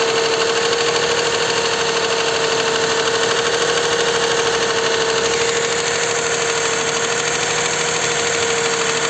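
Toyota 2GR-FKS 3.5 L V6 engine running steadily with a knock, which the mechanics take for a connecting-rod knock rather than the hydraulic lifter the dealer blamed. A steady tone runs through the engine noise.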